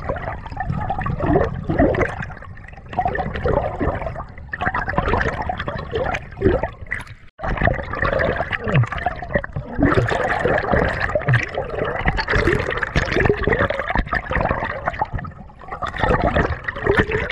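Water gurgling and sloshing around a submerged camera, a continuous wash crowded with short bubbly pops. It briefly drops out about seven seconds in.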